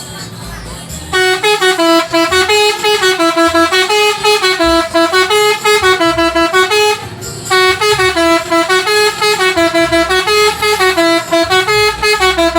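A bus telolet horn, a multi-trumpet air horn, plays a fast, repeating melody of stepped notes. It is loud, starts about a second in, and breaks off briefly about seven seconds in before playing the tune again.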